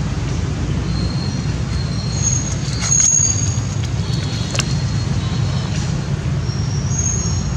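Steady low outdoor rumble, with a few short high-pitched chirps in the middle and again near the end.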